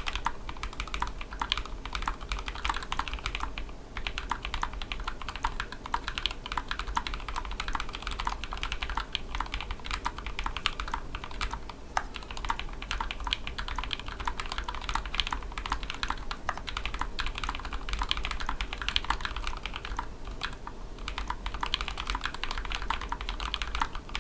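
Fast, continuous typing on a custom 60% mechanical keyboard: a KBDFans Tofu tray-mount aluminium case with a carbon fibre plate, fitted with lubed "Greetaliaz" frankenswitches (Aliaz housings, Halo Clear stems, 68 g springs, Greetech Blue leaves). The strokes come as a dense stream of keypresses, with a brief lull about four seconds in and another about twenty seconds in.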